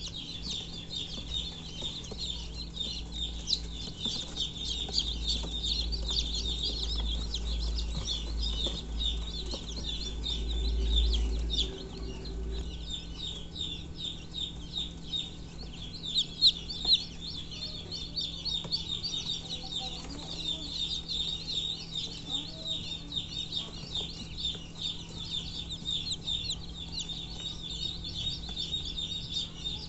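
Newly hatched chicks peeping high and rapidly, almost without pause. Two sharp knocks stand out about halfway through.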